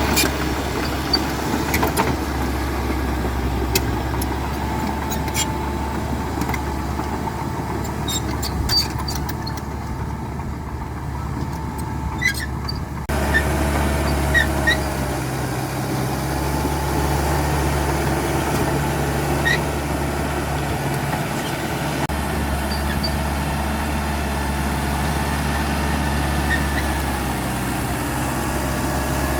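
CAT D5K XL bulldozer's diesel engine running steadily under work, with scattered sharp clicks and cracks in the first half. The sound shifts abruptly about halfway through.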